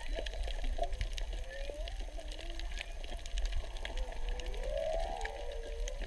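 Humpback whale song heard underwater: a series of drawn-out moaning calls that glide up and down in pitch, the loudest a rising sweep about five seconds in. A constant crackle of sharp clicks from reef snapping shrimp runs underneath.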